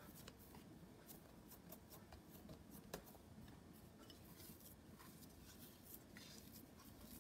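Near silence, with faint soft clicks and taps from hands working dough on a wooden board and one sharper tap about three seconds in.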